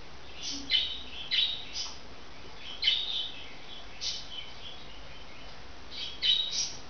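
Pet budgerigar giving short, scratchy chirps in small clusters, a second or so apart, with the loudest calls about three seconds in and near the end.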